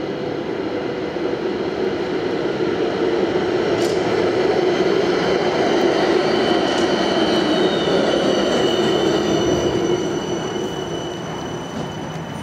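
Transtech Artic low-floor tram rolling past close by: the rumble of its wheels on the rails swells as it passes and eases off about ten seconds in, with a steady high whine over it.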